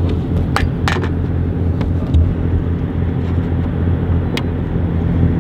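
Bass boat's outboard motor running steadily, a low drone, with a few sharp clicks from gear being handled on the deck.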